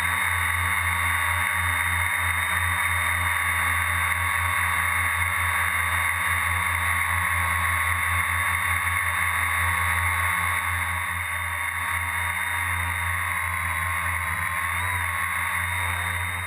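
Quadcopter's electric motors and propellers running in a hover, heard from a GoPro mounted on the quad: a steady, loud buzz with a whine, its pitch shifting slightly now and then as the motors adjust.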